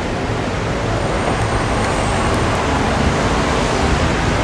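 Steady road traffic and bus engine noise, heard from the open top deck of a moving sightseeing bus.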